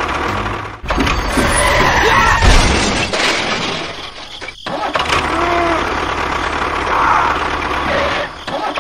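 Tractor engine sound running steadily with a low rumble, broken by abrupt cuts about one second and four and a half seconds in.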